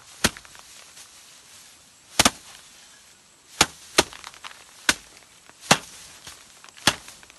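Bundles of harvested rice paddy beaten by hand against a wooden threshing board: sharp woody knocks, about seven at uneven intervals, one of them doubled, as several threshers strike in turn.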